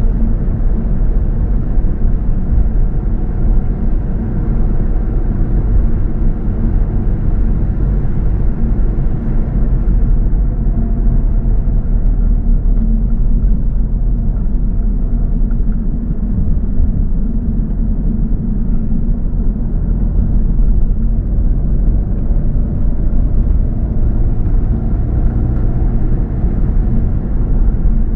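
A car driving along at a steady pace: a continuous low rumble of road and engine noise.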